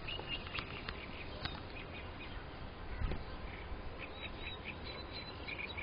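Faint outdoor ambience: steady low background noise with scattered short, high bird chirps and a few small clicks, and a soft low bump about three seconds in.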